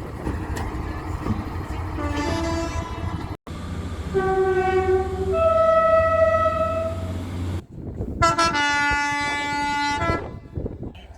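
Train horns in three short clips cut together, each over the rumble of a train. Two-tone horn blasts: a brief toot, then a higher note followed by a longer lower note, then a quick toot and a longer held note.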